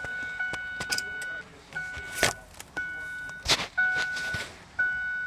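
A 2006 Ford Five Hundred's electronic warning chime sounding over and over, about once a second, with a few sharp clicks or rattles in between.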